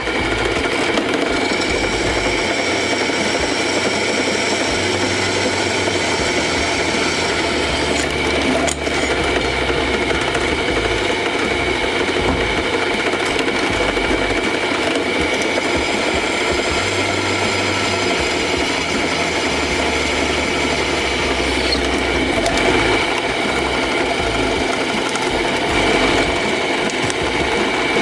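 An electric power tool running steadily with a constant high whine.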